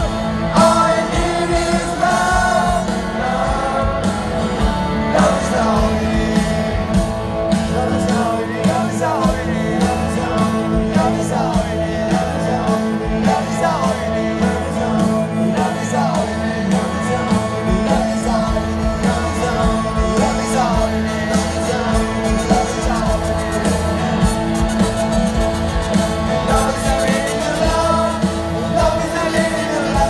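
Live rock band playing through a concert PA, with a man singing lead over electric guitar, heard from within the audience.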